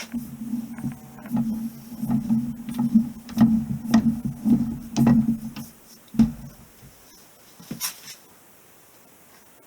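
Repeated sharp knocks, about two a second, from hand work on a driveshaft U-joint, over a steady low hum for about six seconds. Then two single knocks.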